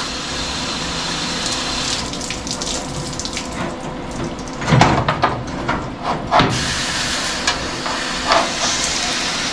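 Steady hiss of spray being directed at a smouldering spot in a car's roof structure to put it out, with a couple of short, louder sounds about halfway through.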